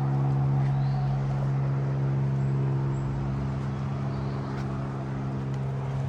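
An engine running steadily, a low even drone with a fixed pitch.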